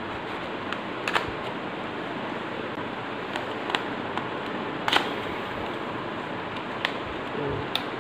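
Sharp clicks and taps of a cardboard SSD retail box being handled and its flap worked open, about seven in all, the loudest about five seconds in. A steady hiss runs underneath.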